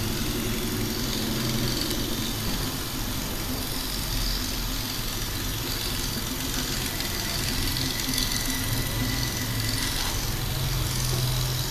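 Steady hum of street traffic with a vehicle engine idling below.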